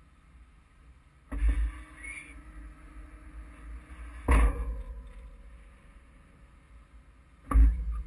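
Three heavy knocks about three seconds apart, each with a brief metallic ring, over a faint low rumble: the steel body of a trailer loaded with harvested peas jolting over rough ground.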